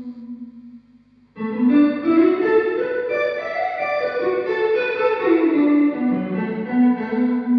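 Electric guitar played through a Strymon Cloudburst ambient reverb pedal into a mic'd Fender Deluxe Reverb amp. A held note fades away, then about a second and a half in a new phrase of notes rings out in a wash of reverb and settles on a held note near the end.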